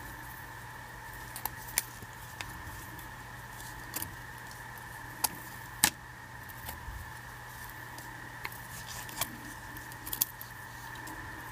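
Scattered light clicks and ticks from fingers, fingernails and a thin clear plastic strip as cotton threads are lifted and wrapped into a friendship bracelet, about a dozen in all. The loudest comes about six seconds in. A steady faint hum runs underneath.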